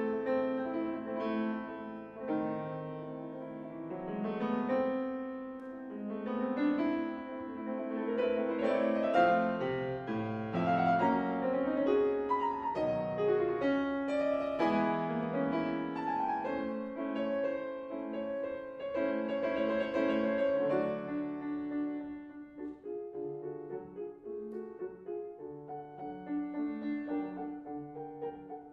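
Grand piano playing a classical passage alone, with full chords and stepping melodic lines; it grows softer and more detached over the last several seconds.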